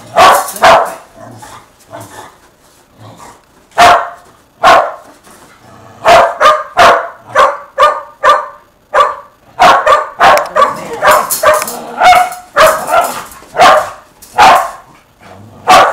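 Shetland sheepdog barking. A few sharp barks come in the first seconds, then about halfway through a fast run of barks, roughly two a second, that hardly lets up.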